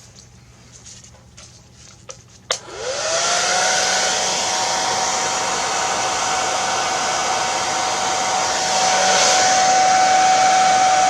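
A hair dryer clicks on about two and a half seconds in. Its motor whine rises quickly to a steady pitch under a loud rush of blowing air, and it gets a little louder near the end.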